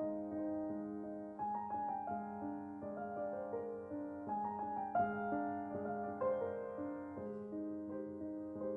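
Background music on a piano-like keyboard: a melody of held notes changing every half second or so over a sustained low note.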